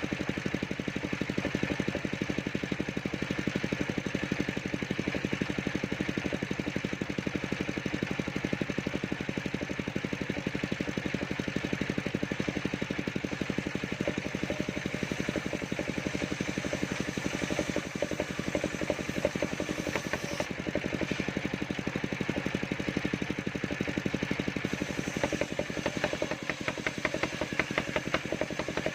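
Engine of a mobile circular sawmill running steadily, with a denser clattering stretch in the last few seconds.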